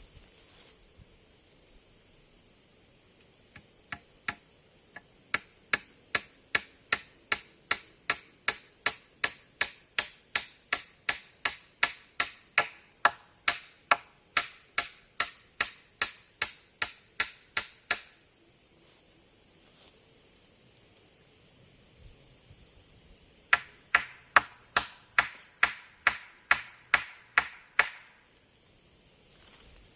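Steady high-pitched drone of forest insects, with two long runs of sharp, evenly spaced clicks or knocks at about three a second: one starting a few seconds in and stopping about halfway, the other near the end.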